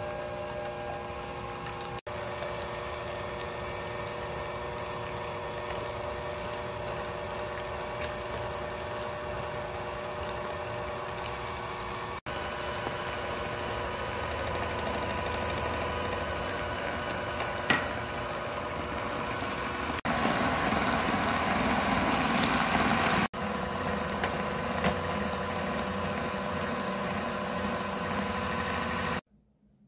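Electric hand mixer running steadily, its beaters whipping egg whites with sugar into meringue in a glass measuring cup. It gets louder about two-thirds of the way in and cuts off shortly before the end.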